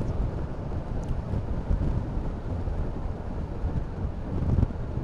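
Wind buffeting the camera microphone on a Honda Forza 350 scooter riding at road speed, a steady low rumble with no clear engine note standing out.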